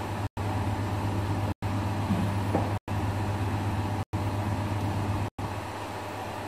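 Steady low hum over an even hiss, cut by five brief total dropouts about every second and a quarter.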